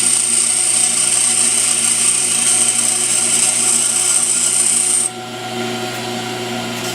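Pedestal grinder running with a high-speed steel lathe tool bit held against the wheel, giving a steady high grinding hiss over the motor's hum while the bit's 60-degree threading tip is shaped. About five seconds in the bit comes off the wheel, the hiss stops and the grinder runs on.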